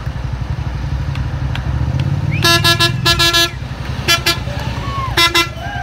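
Fire engine horns tooting in short repeated blasts over the low rumble of the trucks' engines: a quick run of about four toots about halfway through, then two shorter bursts near the end.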